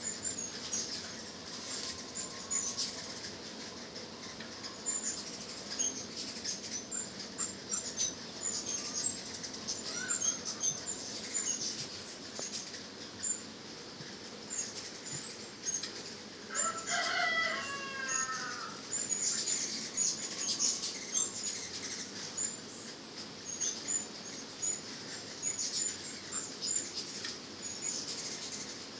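A crowd of hummingbirds at nectar feeders: a continuous, dense chatter of short, high-pitched chips and squeaks over the buzz of many wings. About 17 seconds in, a louder, lower-pitched call cuts across it for a second or so.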